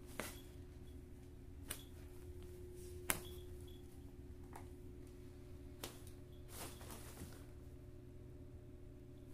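A handful of faint, scattered taps and a brief soft rustle as a kitten shuffles about inside a fabric play tunnel, over a steady low hum.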